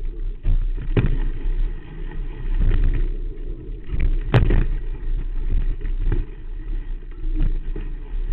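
Mountain bike rolling over a dirt trail, heard from low on the front fork: a steady low rumble from the knobby front tyre and frame vibration, broken by sharp knocks as the bike hits bumps, the loudest about four seconds in.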